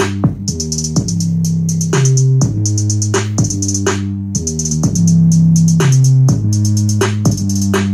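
Hip-hop beat with a drum machine and a deep, steady bass line playing through a 1980s Pyramid PB-180px car amplifier driving two small speaker boxes, putting out some decent bass.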